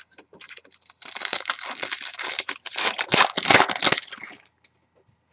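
Plastic trading-card pack wrapper crinkling and tearing as it is opened and handled, a dense crackle of about three seconds that starts about a second in.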